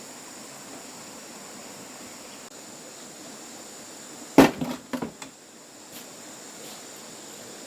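One sharp knock about four seconds in, followed quickly by a few lighter knocks, over a steady background hiss.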